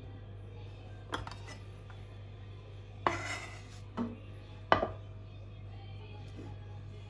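Ceramic bowl and dishes handled on a plastic cutting board: a click about a second in, a scraping clatter around three seconds, then a sharp knock just before five seconds as the bowl is set down. A steady low hum runs underneath.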